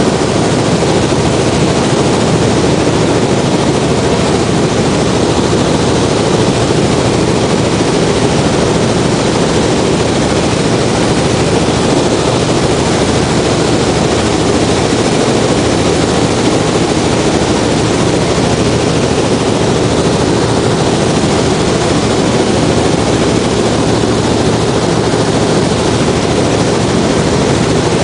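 Robinson R44 Clipper II helicopter in cruise flight heard from inside the cabin: its six-cylinder Lycoming piston engine and rotors make a loud, steady drone with a low hum beneath.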